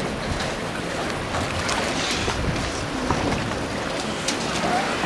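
Steady outdoor wash of wind and lapping water at a harbour quay, with a few faint clicks.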